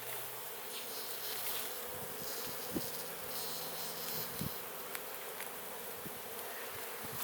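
Honeybees buzzing around an opened hive, a steady drone from many bees in flight, with a few light knocks of frames being handled.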